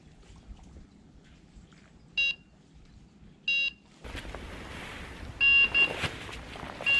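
Electronic carp bite alarm bleeping: two single bleeps a little over a second apart, then a quicker run of bleeps a couple of seconds later, the sign of a carp taking the bait and pulling line. Rustling and movement sound under the later bleeps.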